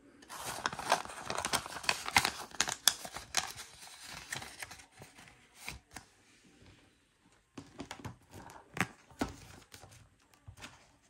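Paper rustling and crinkling as banknotes and paper envelopes are handled, with many short crackles and clicks, dense for the first few seconds and then sparser.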